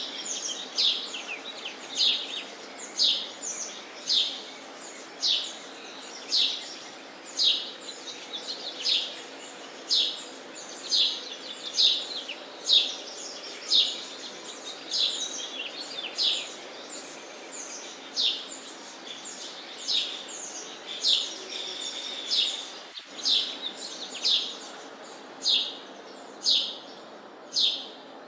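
Sparrow chirping over and over, short sharp chirps about once a second, over a steady background hiss.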